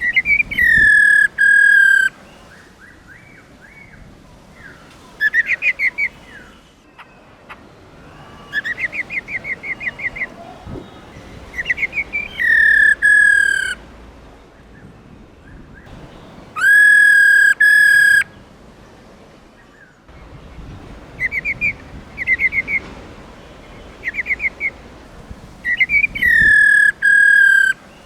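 Female black-throated laughingthrush calling: loud whistled notes, four of them held about a second and a half with a slight downward slide, alternating with quick runs of short repeated notes.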